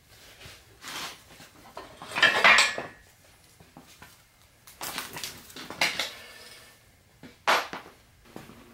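Metal clanking and rattling as a Subaru engine block is handled and turned on a steel engine stand. There are several separate clanks, the loudest about two seconds in, and a sharp one near the end.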